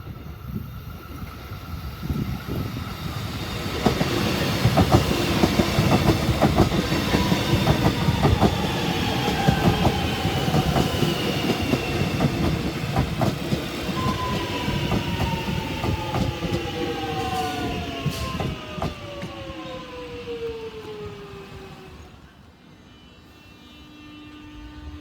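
Alstom X'Trapolis electric train passing through the station: wheels clicking over rail joints above a rumble, and electric motor whine falling steadily in pitch as the train slows. Near the end the noise dies down to a quieter steady hum.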